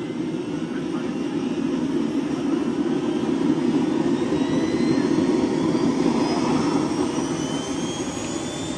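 Model turbine engine of a radio-controlled Mi-24 Hind helicopter running: a steady jet rush that swells to a peak midway and then eases off, with a thin whine gliding slowly upward.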